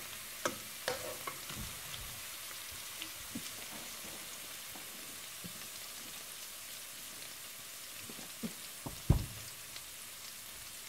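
Ginger-garlic paste and mustard seeds sizzling steadily in hot oil in a stainless steel wok, stirred with a wooden spatula that scrapes and knocks against the pan now and then, with one louder knock about nine seconds in.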